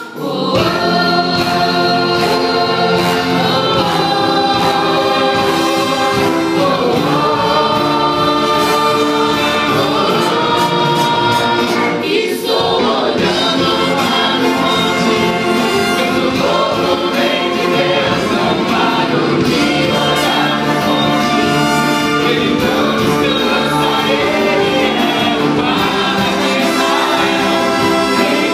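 Live church orchestra of strings and brass with saxophones accompanying a group of female singers in a gospel song, sung together in chorus over the full band.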